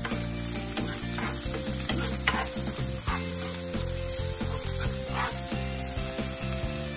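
Chopped onions, chilies and garlic sizzling in hot oil in a pan, with the scrape of a spatula as they are stirred in strokes about once a second.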